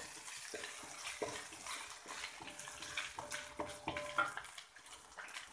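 Belacan paste sizzling softly in hot oil in a wok, with a wooden spatula scraping and tapping the pan now and then as it is stirred.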